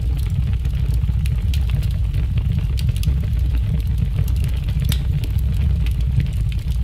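A loud, steady low rumble with scattered faint clicks.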